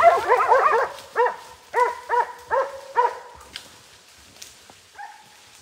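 West Siberian laika hunting dogs barking at a bear: a quick run of high, sharp barks, about two a second, overlapping at first and stopping after about three seconds, with one faint yelp near the end.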